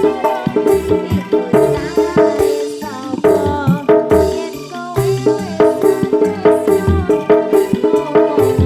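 Live band playing an instrumental passage without vocals, with quick percussion strikes under a melody line whose notes bend in pitch.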